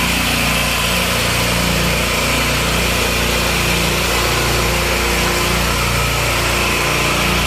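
Boat engine running steadily while the boat is underway.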